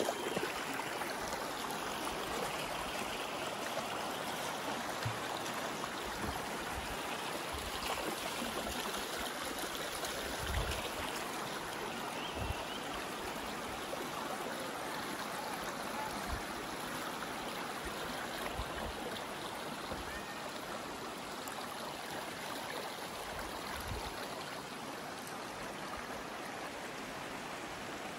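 Shallow, rocky river running over stones and small riffles: a steady rush of flowing water.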